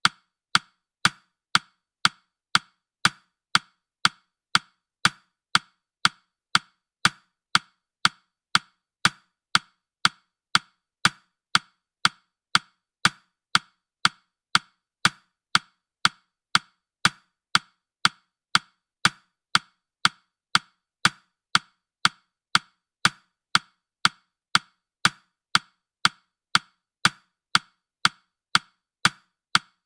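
Steady clock-like ticking from a countdown timer's sound effect, about two crisp ticks a second, evenly spaced.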